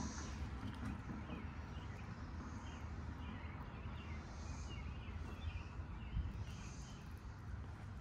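A chorus of periodical cicadas: a high buzz that swells and fades about every two seconds, with birds chirping and a low rumble.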